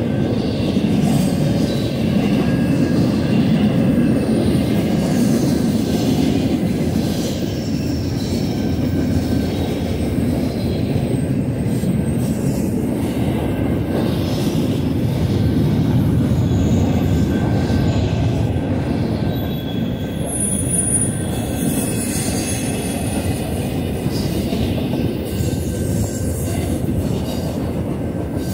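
Union Pacific intermodal freight train rolling past, its cars' wheels on the rails making a steady rumble. A faint high wheel squeal rises over it about twenty seconds in.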